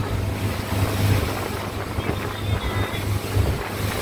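Towing speedboat's motor running steadily at speed, with wind buffeting the microphone and the wake's water rushing.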